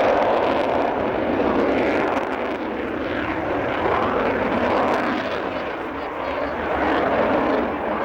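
Aircraft engine noise overhead, a loud, steady rushing that swells and eases a little over several seconds.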